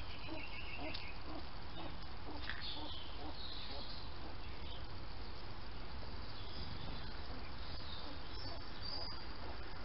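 Small birds chirping now and then, with a quick run of notes near the start, over a steady low background rumble.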